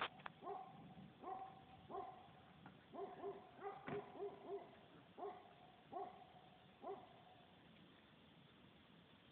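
Faint animal calls, short and repeated about once a second with a quicker run in the middle, stopping about seven seconds in.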